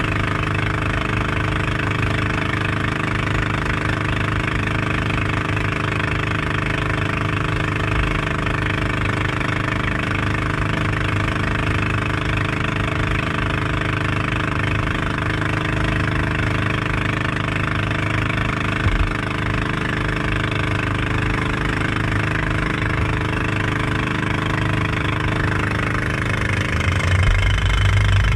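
Engine of a motorized outrigger boat (bangka) running steadily at speed, under the hiss of rushing water and spray from the hull. A low rumble swells briefly near the end.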